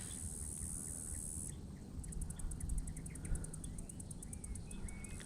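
Insects in the pond-side vegetation: a steady high buzz that stops about a second and a half in, then a rapid pulsed chirping, about seven pulses a second, with a few short bird chirps near the end.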